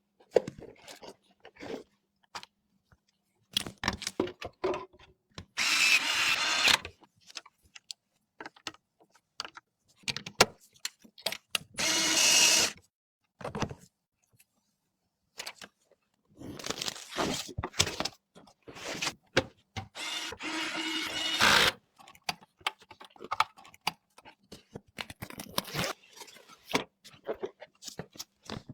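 Computer parts being handled and fitted together: scattered clicks and knocks, with four louder bursts of noise lasting about a second each.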